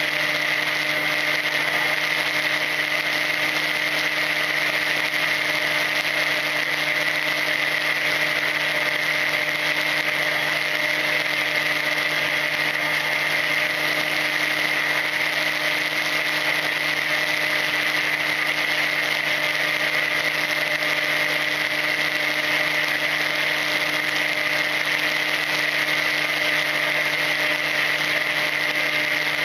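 Brushless electric motor and propeller of a Volantex Ranger EX RC plane, heard through its onboard camera, running steadily at cruise throttle: a constant-pitch hum and whine over a rush of wind noise.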